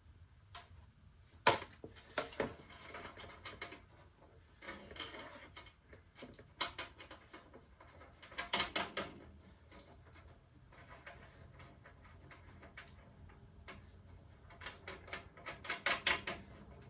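Irregular clicks, taps and light rattles of small metal and plastic parts being handled while a diesel heater kit is fitted together. The sharpest click comes about a second and a half in, with denser clusters of clatter near the middle and toward the end.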